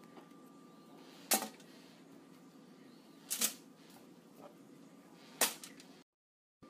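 Zucchini spears set down one at a time on a foil-lined baking sheet: three sharp taps with foil crinkle about two seconds apart, plus a few lighter ticks, over a faint steady hum.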